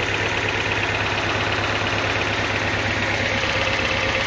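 2007 Mini One's 1.4-litre petrol four-cylinder engine idling steadily, a little lumpy, with a misfire somewhere that the owner thinks could be the mixture running a bit rich.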